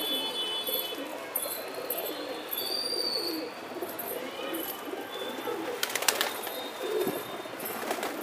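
A flock of male domestic pigeons cooing continuously, many birds at once. A short cluster of sharp clicks cuts through about six seconds in.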